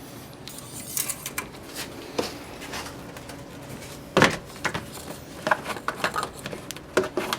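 Scattered light clicks and knocks of hands handling parts under the hood while getting ready to top up the engine oil, with one louder knock about four seconds in.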